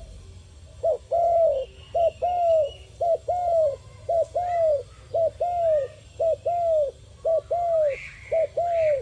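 A dove cooing in a regular series of two-note phrases, about one a second starting a second in: a short clipped note followed by a longer arched coo. Fainter high chirps of small birds sound in the background.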